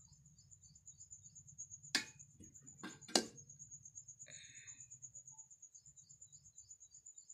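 Steel ladle clinking against a steel pot and plate as rice is served, with two sharp clinks about two and three seconds in. Under it, a cricket trills steadily at a high pitch.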